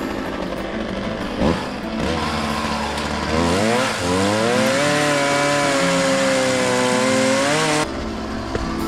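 Chainsaw idling, then revved up to full throttle about three seconds in and held for about four seconds, its pitch sagging a little midway, before dropping suddenly back to idle.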